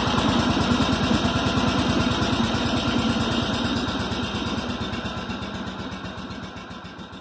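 An engine running at idle with a rapid, even beat, fading out steadily over the second half.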